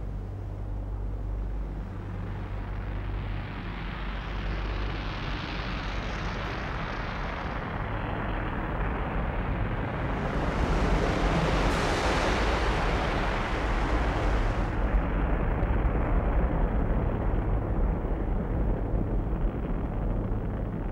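A low, steady rumble that builds in loudness, a dramatised volcanic eruption rumble. About ten seconds in, a louder rushing, hissing spell of several seconds comes as a swimmer underwater breathes out a stream of bubbles.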